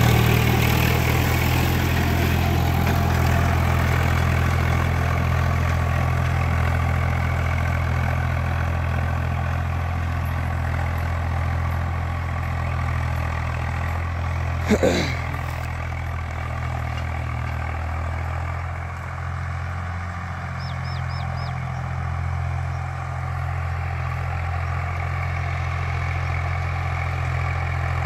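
Tractor engine running steadily under load as it pulls an 18-disc harrow, loudest at the start and growing gradually quieter. A brief sharp sound about halfway through.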